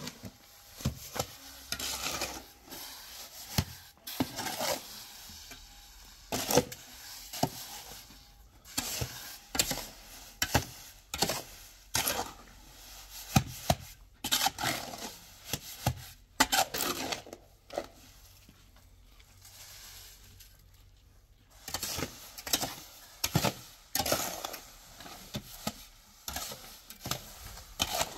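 Irregular knocks and clatter of hard objects being handled, with short scraping noises between them, pausing for a few seconds past the middle.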